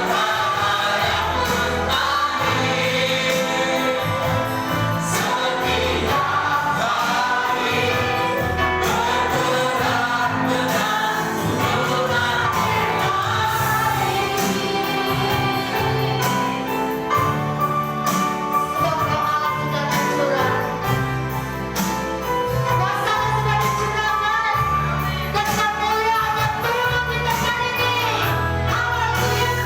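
Gospel worship song: voices singing together over a band with bass and drums keeping a steady beat.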